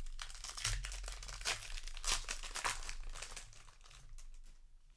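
Plastic foil wrapper of a Magic: The Gathering booster pack crinkling and tearing as the pack is opened, a run of crackling rustles that die down about four seconds in.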